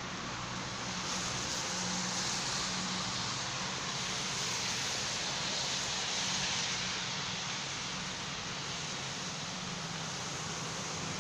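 Steady outdoor ambient noise: an even hiss with a low hum beneath it and no distinct events.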